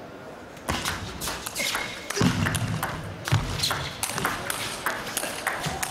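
Table tennis rally: a quick run of sharp clicks as the ball is struck by the rackets and bounces on the table, back and forth.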